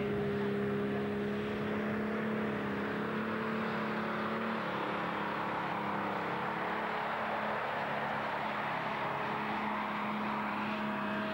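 Pulling tractor's diesel engine running hard at steady high revs under full load as it drags the weight-transfer sled down the track.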